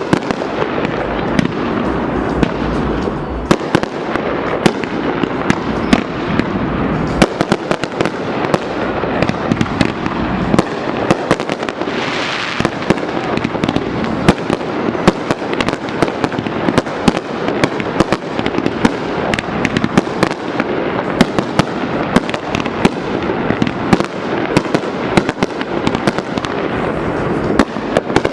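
Fireworks display going off without a break: many sharp bangs and pops, close together, over a constant crackle, with a brief hissing burst about twelve seconds in.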